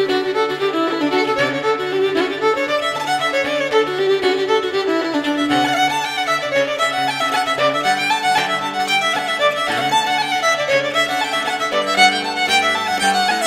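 Fiddle playing a set of Irish reels, quick running notes over a sustained low accompaniment.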